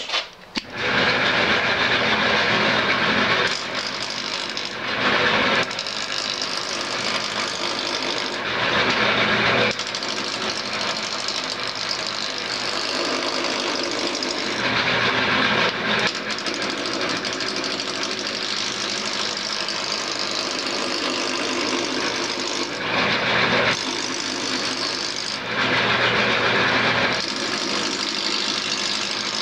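Wood lathe spinning a square glued-up cherry-and-maple blank while a roughing gouge cuts its corners down toward round: a loud, continuous cutting clatter over the motor's hum. The clatter starts about a second in and swells louder in several short stretches.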